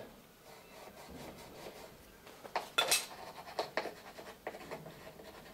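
Pencil scratching on a plywood plank template as marks are drawn. There are a few short strokes in the middle, the strongest about three seconds in.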